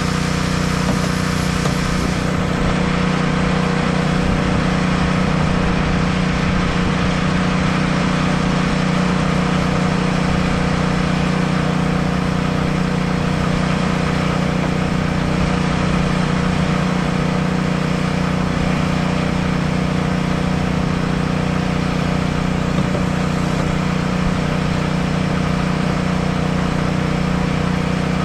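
An engine running steadily at constant speed, a loud even drone with no change in pitch.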